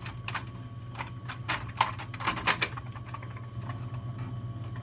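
Vending machine coin mechanism pushed back into place: a quick run of plastic-and-metal clicks and clacks over the first couple of seconds, under a steady low hum.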